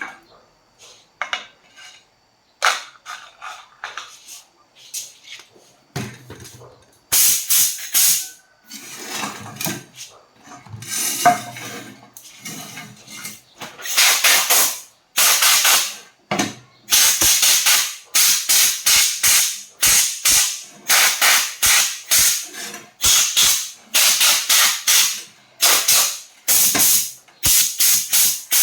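A few clicks and knocks, then from about seven seconds in short bursts of loud hissing, each under a second long and repeated about once or twice a second.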